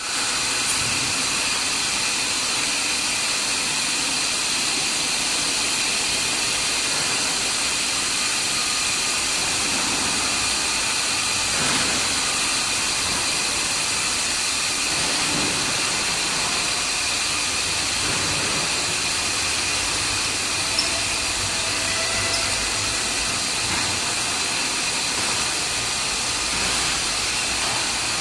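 Steady loud hiss with several high steady tones: industrial machinery noise in an autoclaved aerated concrete plant's autoclave hall. There is one faint tick about two-thirds of the way through.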